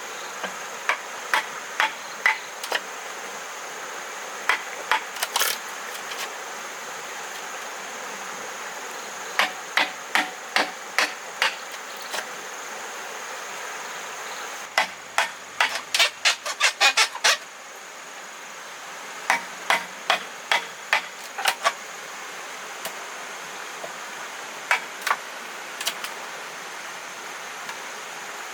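Repeated sharp blows of a hand tool striking bamboo, in bursts of several strokes about two a second, with a quick run of blows about fifteen seconds in. A steady high insect drone runs underneath.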